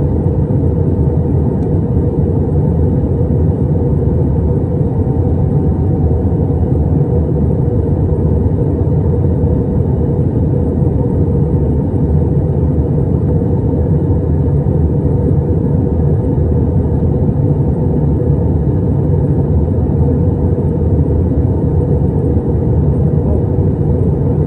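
Steady cabin noise inside an Airbus A320 airliner in flight on descent: an even, low rumble and rush of engines and airflow, unchanging throughout.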